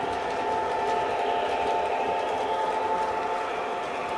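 O gauge model diesel locomotive and passenger cars running on three-rail track: a steady motor whine with a faint rolling clatter of wheels on the rails.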